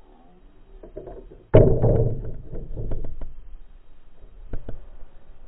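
A sudden heavy thump about a second and a half in, with a rough rumbling tail that fades over about a second, followed by a few lighter knocks and clicks.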